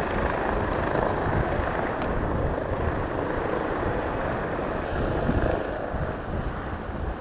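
Aircraft flying, its rotors making a steady rushing whir.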